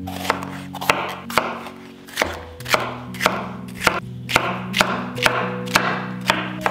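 Chef's knife slicing a green bell pepper into strips on a wooden cutting board: sharp, even chopping strokes about two a second, with soft background music underneath.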